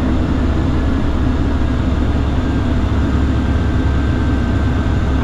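Steady drone of a Socata TBM 910's turboprop engine and propeller heard inside the cockpit, with a faint steady whine above the low hum.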